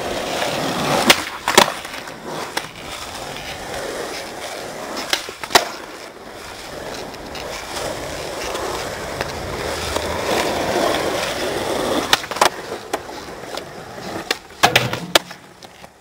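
Skateboard wheels rolling on smooth asphalt, broken by sharp clacks of the board hitting the ground, several in pairs about half a second apart.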